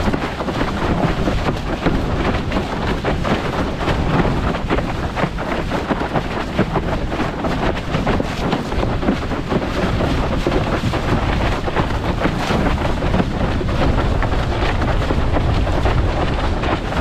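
Strong wind buffeting an action camera's microphone on a windsurf rig under way, with the board hissing and slapping over choppy water in a steady stream of small knocks.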